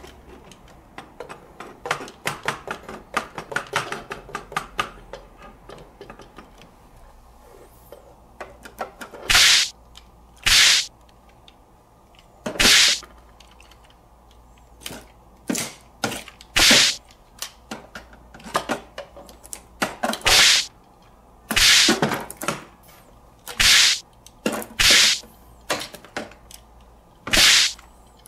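Plastic toys handled with light clicking and tapping, then about a dozen short noisy bursts, one every second or two, as clear sticky tape tears away from the plastic garage while taped-on toy cockroaches are pulled off.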